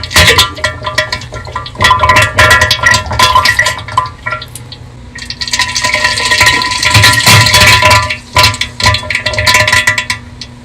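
Bass-boosted diarrhea sound effect: loud, wet, sputtering farts and splatters in irregular bursts, distorted by the boost. It drops quieter for a moment partway through and then builds again.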